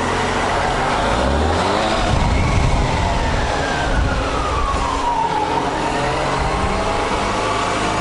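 Motorcycle engine running as it rides slowly through an underground car park, with a whine that glides down in pitch over a few seconds midway.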